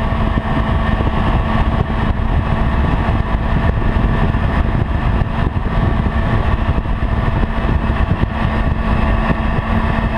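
Honda CB-1's inline-four engine running at a steady cruise while riding, with a low wind rumble over the microphone.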